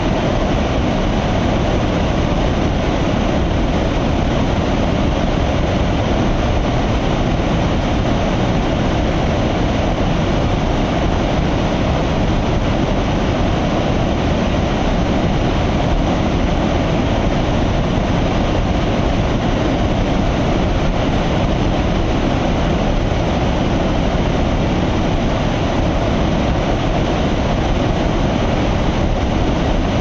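White water rushing and churning fast through a hydro dam's outflow: a loud, steady rush with a heavy low rumble that does not let up.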